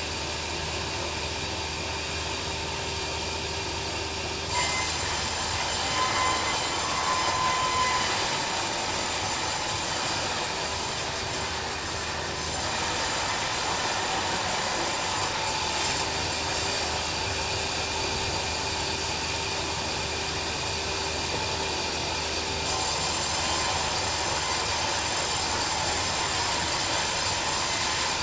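Bandsaw sawmill running, its blade cutting through a log from about four seconds in with a loud, hissing saw noise over the steady hum of the machine. The cutting noise eases partway through and grows louder again near the end.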